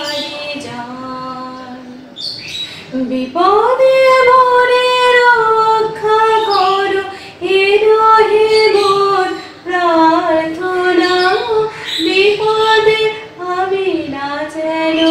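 A woman singing a devotional song solo and unaccompanied. She holds long notes that slide up and down in pitch, with short pauses for breath between phrases.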